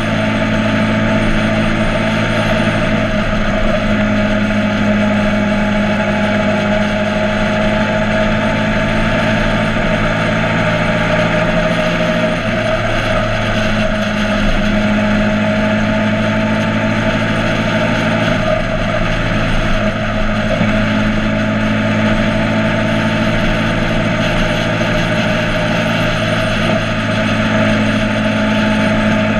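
Motorcycle engine running at a steady, unchanging pitch, with a constant rush of noise over it.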